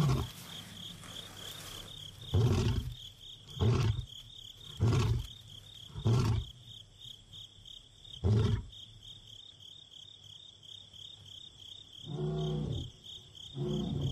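Male lion roaring at night: a run of five deep, short grunts about a second apart, then two fainter, longer calls near the end. A steady high trill of insects runs underneath.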